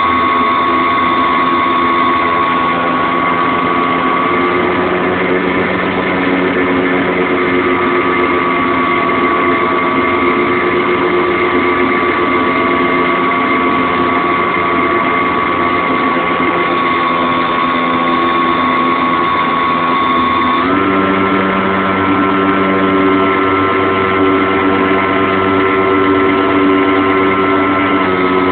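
Radio-controlled Flightstar model airplane's motor running steadily with a high, slightly wavering pitch. About two-thirds of the way through, the pitch steps up a little and holds there, as the throttle is opened slightly.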